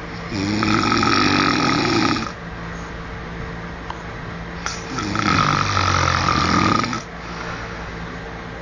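A man snoring in his sleep: two loud snores, each about two seconds long, the second beginning about five seconds in.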